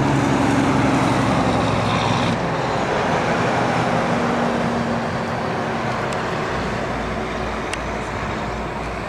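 Road traffic noise from a highway, with a vehicle engine droning at the start that fades away about two seconds in.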